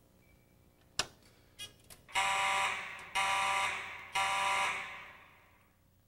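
A fire alarm pull station is pulled with a sharp click about a second in. About two seconds in, the building's wall-mounted fire alarm horn starts sounding a buzzy tone in three blasts of about a second each, the alarm signal set off by the pull station.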